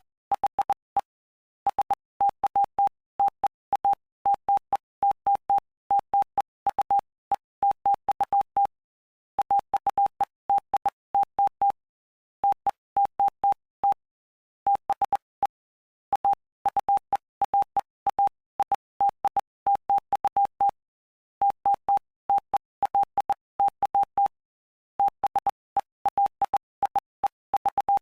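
Morse code sent as a single steady beep tone, keyed on and off in short and long elements grouped into letters and words with brief pauses between words, spelling out the text of Mark chapter 5.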